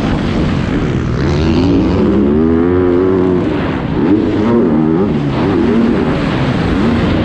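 Yamaha YZ250F's 250 cc four-stroke single-cylinder engine heard from on board the bike, revving hard under racing throttle, its pitch rising and falling several times as the rider gets on and off the gas.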